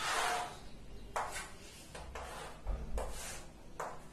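Chalk on a blackboard drawing lines: a scraping stroke at the start, then several short, sharp strokes of the chalk, with a soft low thump near the middle.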